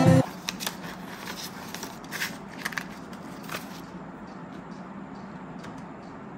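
Guitar music cuts off at the very start. Then comes quiet crinkling and scattered clicks of Australian polymer banknotes being handled and slid into a clear plastic zipper pouch in a budget binder.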